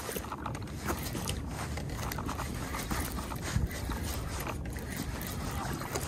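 Wind buffeting the camera microphone, with rustling and scraping as a jacket sleeve brushes against the camera.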